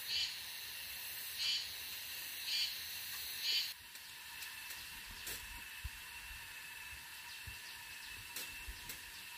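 Countryside ambience with a steady high-pitched insect drone. Four short buzzy chirps come about a second apart in the first few seconds, then stop abruptly. After that it is quieter, with a few soft thumps.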